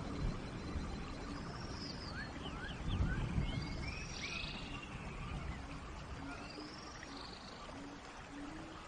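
Steady rain falling in a forest, with birds giving a few arched, whistled calls and quick rising chirps through the middle, and short low notes repeating in the second half.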